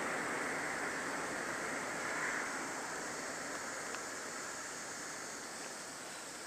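Steady rushing noise that slowly fades, with a faint click about four seconds in.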